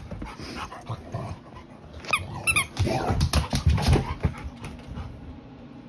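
Rottweiler vocalizing: a quick run of high, squeaky whines about two seconds in, then a loud, low grumbling stretch lasting about a second and a half.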